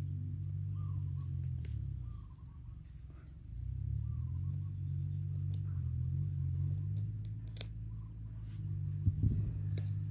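A low, steady motor drone that fades about two seconds in and comes back a second or so later, under a faint high insect trill, with a few light clicks.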